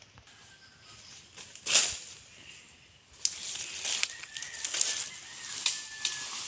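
Leaves and brush rustling, with sharp twig snaps, as someone pushes through thick undergrowth on foot. It starts in earnest about three seconds in, after a quieter stretch with one short rustle.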